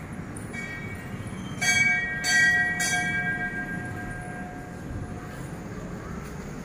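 Metal temple bell struck three times, about half a second apart, each strike leaving a clear ringing tone that fades over a couple of seconds; fainter ringing from earlier strikes carries on beneath.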